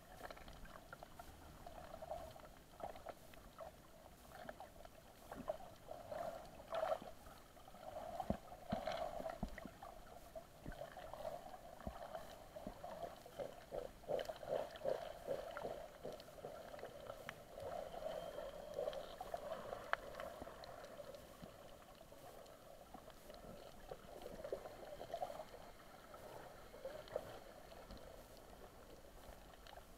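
Muffled underwater sound picked up by a camera swimming over a coral reef: a steady low rush of water, with swells in level and many scattered short clicks and crackles.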